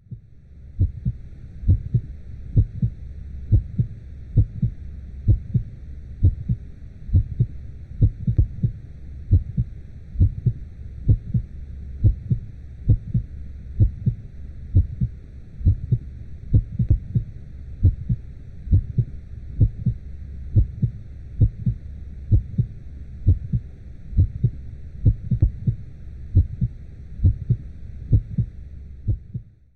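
Womb heartbeat sound for soothing a baby: steady double thumps, lub-dub, about one beat a second, over a continuous low whooshing rumble.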